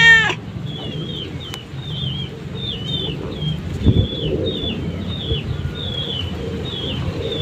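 Birds chirping over and over, a short high chirp about twice a second, with a cat's short rising-and-falling meow right at the start and a low bump about four seconds in.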